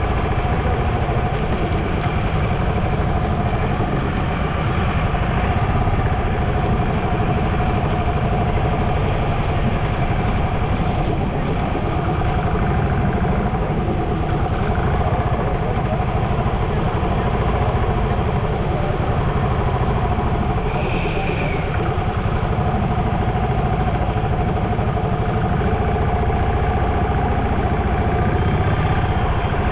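Diesel engine of a JCB backhoe loader running steadily at idle, over a constant rushing noise.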